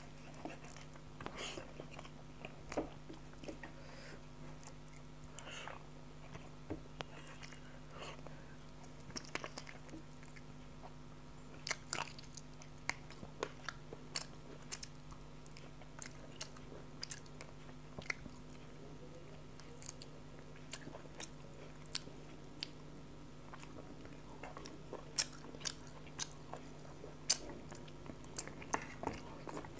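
Close-miked eating sounds of chicken curry and rice eaten by hand: chewing, biting and wet smacks, with sharp clicks scattered irregularly and the loudest about 25 seconds in, over a faint steady hum.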